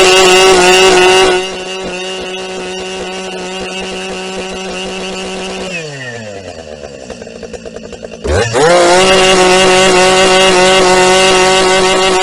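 Husqvarna 380 CD two-stroke chainsaw running at high revs with a steady pitch, loud at first and then quieter. About six seconds in the revs fall away toward idle, and a couple of seconds later the throttle is opened and the engine climbs sharply back to full revs.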